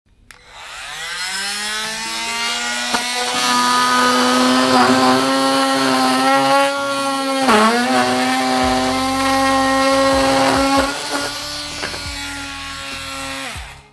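Milwaukee C12 MT 12-volt cordless oscillating multi-tool with a wood-cutting blade, starting up with its pitch rising to a steady high buzz, then plunge-cutting into a wooden block. The pitch dips briefly about halfway through as the blade bites under load, then recovers. The tool is switched off just before the end.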